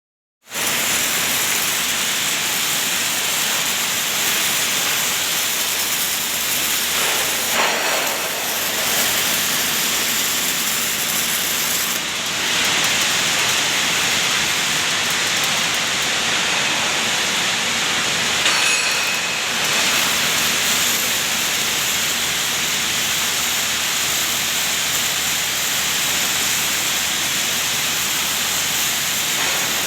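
MIG welding arc crackling and hissing steadily as a body liner plate is welded.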